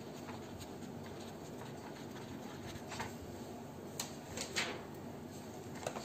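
Faint scratching of a pen writing on a lined paper notebook page, followed by a few soft ticks and rubs of a hand on the paper in the second half.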